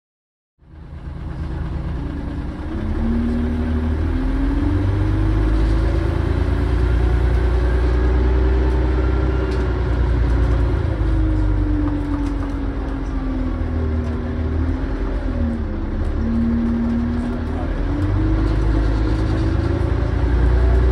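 Volvo Olympian double-decker bus's engine running, heard from inside the passenger saloon as a deep rumble. Over it a whining tone rises and falls in pitch a few times.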